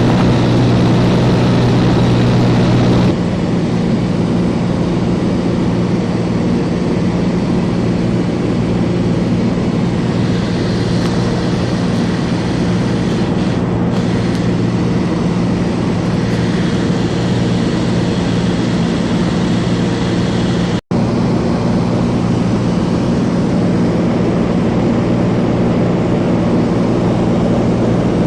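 Cessna single-engine piston aircraft engine and propeller in a steady cruise drone, with a constant low hum. It drops a little in loudness about three seconds in and breaks off for an instant about two-thirds of the way through.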